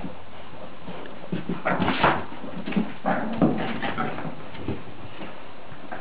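Two dogs tussling over a slipper, with short, irregular whines coming in a cluster between about one and five seconds in.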